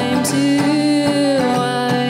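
Live acoustic guitar strummed under a woman's singing voice, which holds one long note that dips slightly in pitch near the end.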